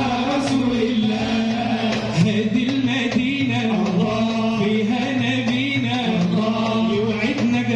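A group of men chanting Islamic devotional inshad in Arabic into microphones, one long, ornamented melody line that bends and wavers in pitch.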